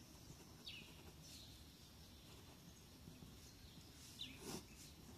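Near silence: faint room tone with a few short, faint high chirps from birds, about a second in and twice more around four seconds in.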